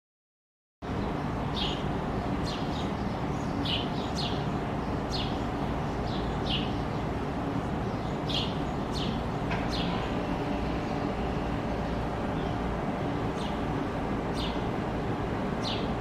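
House sparrows chirping: short, falling chirps scattered irregularly over a steady low rumble. The sound cuts in suddenly about a second in.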